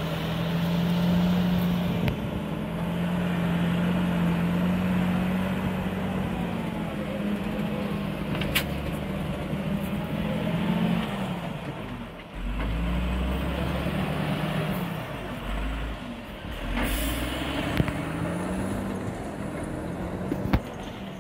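A loader's diesel engine working under load as it scoops avalanche snow, its pitch rising and falling as it revs, with a brief dip about twelve seconds in. A few sharp knocks come through, one about eight seconds in.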